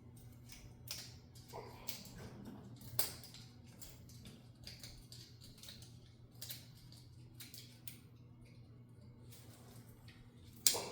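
Hand tools and small metal parts of a backhoe hydraulic control clicking and clinking during disassembly, with one sharper clank near the end. A steady low hum runs underneath.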